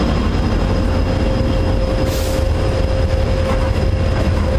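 Freight cars of a passing train rolling by: a steady low rumble of steel wheels on rail, with a steady whine running through it.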